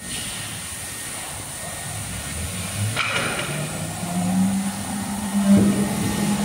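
Foam CNC router with a swing head carving a styrofoam block: a steady high spindle whine over the hum of the axis motors. The hum steps up in pitch around the middle as the head moves. There is a short noisy burst about three seconds in.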